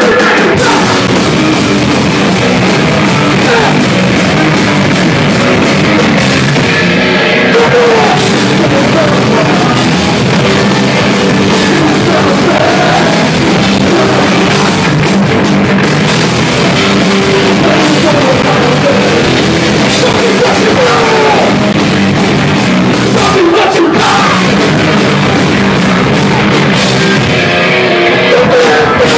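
Hardcore punk band playing a song live and loud: full drum kit, several electric guitars and vocals.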